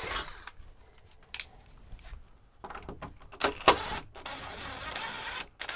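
Cordless drill boring a 5/16-inch hole through the door's fake-wood panel in short runs: a brief run at the start, then a longer steady run near the end, with clicks and rattles of handling between.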